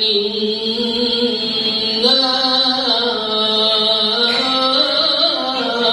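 A man reciting the Qur'an in melodic tilawah style, holding one long ornamented vowel without a break while his voice turns slowly up and down in pitch, rising a step about two seconds in.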